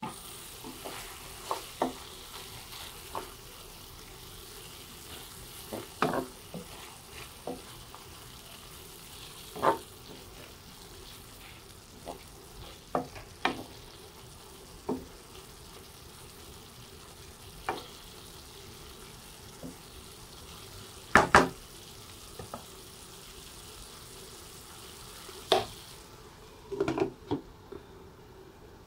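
Chicken and broccoli sizzling steadily in a frying pan while a wooden spatula stirs them, knocking and scraping against the pan every second or two, loudest as a double knock about two-thirds of the way through. Near the end a glass lid goes on with a few clatters and the hiss of the sizzle drops.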